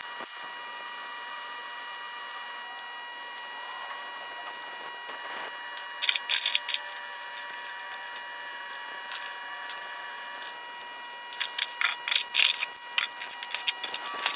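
Small metal parts clicking and clinking in irregular clusters as they are handled and fitted, over a steady high electrical whine.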